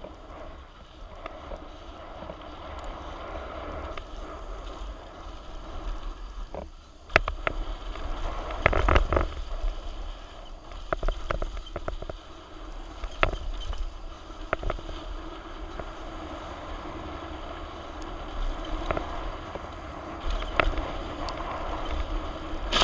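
Wind rushing over a helmet-mounted camera on a mountain bike riding downhill on a dirt trail, with tyre noise on the dirt and scattered rattles and knocks from the bike over rocks and bumps, a burst of them about eight to nine seconds in.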